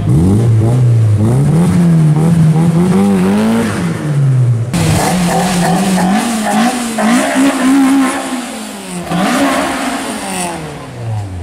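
Car engines revving up and down in repeated throttle blips: first a white car, then, after an abrupt change about five seconds in, an old blue Toyota Corolla coupe revving as it moves off, its pitch climbing and then dropping near the end.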